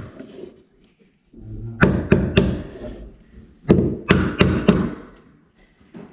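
A hammer tapping a laminate stair tread into place, striking it in two quick runs of three or four blows about two and four seconds in. It is driving the piece tight against the stair nosing so that no gap is left at the edge.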